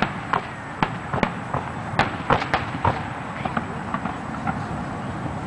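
Aerial fireworks going off: a string of sharp bangs in the first three seconds, then thinning out to a few faint pops.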